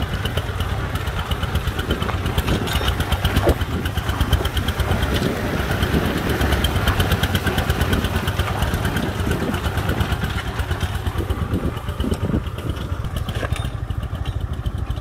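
Công nông farm truck's single-cylinder diesel engine chugging steadily as the truck hauls a load of broken brick, a fast even knock of firing strokes. The sound thins out near the end as the truck pulls away.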